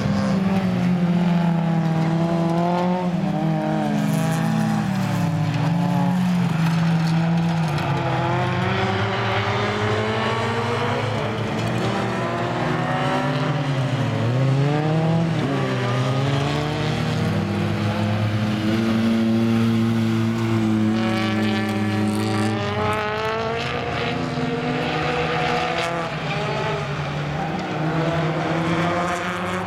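Folkrace cars' engines revving hard and shifting gears as they race round a gravel track, with several engine notes overlapping and rising and falling in pitch.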